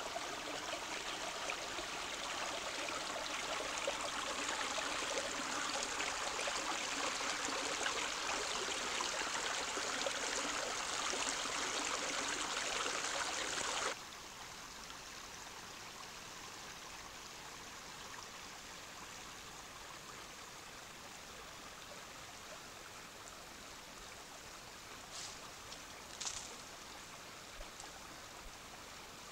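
Small forest stream rushing and trickling over stones. It is loud for the first half, then drops suddenly to a quieter steady flow, with two brief clicks near the end.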